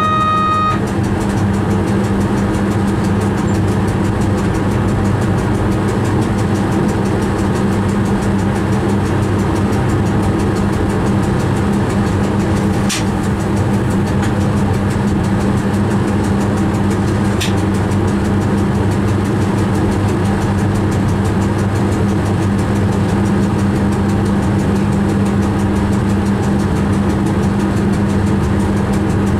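Electric train heard from its cab while running: a steady deep hum with a constant drone under it, over an even rumble of wheels on rail. A high steady tone cuts off just under a second in, and two faint clicks come later.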